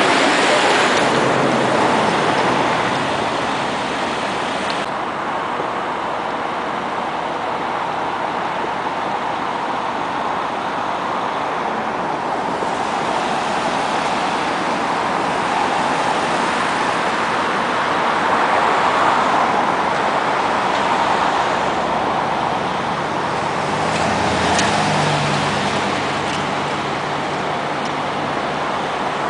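A brush fire burning through dry reeds and brush, heard as a steady rushing noise with a few faint crackles. The sound turns duller about five seconds in.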